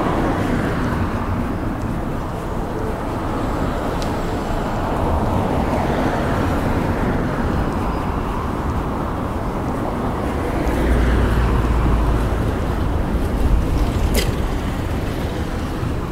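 Road traffic on a multi-lane city street: cars passing one after another, the noise swelling and fading as each goes by, with a deeper low rumble about eleven seconds in. A brief sharp high squeak near the end.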